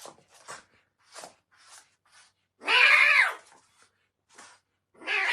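A cat meowing: one long, drawn-out meow about three seconds in and another starting near the end, with a few faint short sounds between.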